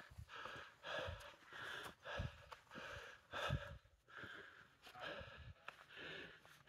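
A person breathing hard close to the microphone, short rasping breaths in and out about twice a second: out of breath from a steep climb at high altitude.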